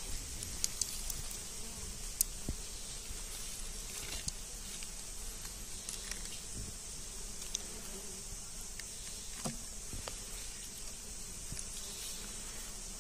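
Steady high-pitched drone of insects with a low buzz of bees beneath it, and a few faint clicks as a knife cuts through a wild honeycomb.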